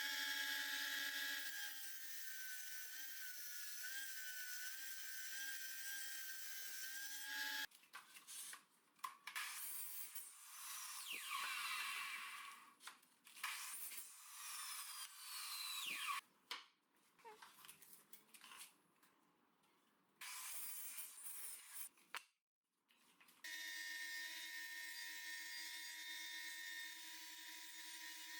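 Power tools running on pine wood in a series of abruptly cut segments: a steady motor whine with hiss at the start and again near the end, and patchier cutting and machining noise in between.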